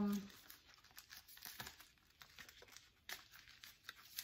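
Faint, scattered crinkling and rustling of a clear plastic zip-top bag and paper sticker sheets being handled and shuffled, with a few sharper crackles.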